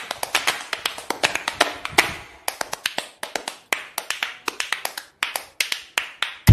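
Background music in a stripped-down percussive passage: sharp taps and clicks, several a second, with no bass.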